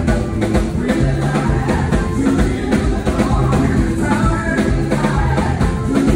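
Live gospel praise band playing an upbeat song: a PDP drum kit keeping a steady driving beat under bass, keys and singers.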